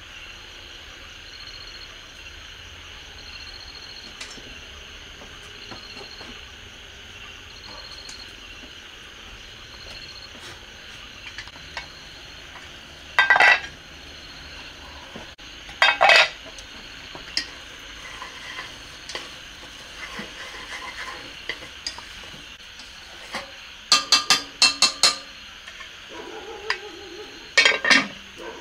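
Pot lid and chopsticks clanking against a metal pot of cooked rice: a loud clank about halfway, another a few seconds later, then a quick run of clanks near the end. Insects chirp steadily in the background.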